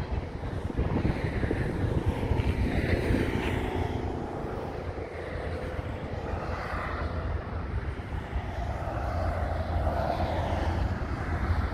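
Wind buffeting the microphone over a steady outdoor engine rumble from passing vehicles.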